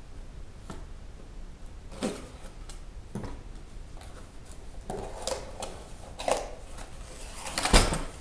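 Small cardboard parts boxes being opened and handled: scattered rustles and clicks of cardboard and loose hardware, with a louder crunch of cardboard near the end.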